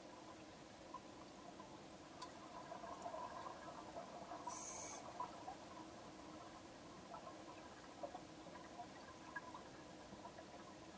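Faint underwater sound of a scuba diver's exhaust bubbles rising through a flooded cave: scattered soft ticking and crackling over a low steady hum, with one brief hiss about halfway through.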